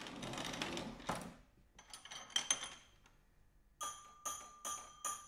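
Electric train staff instrument being worked by hand: a rustle and a few sharp metallic clicks, then from about the middle a quick run of metallic strokes, roughly two or three a second, each with a short bell-like ring.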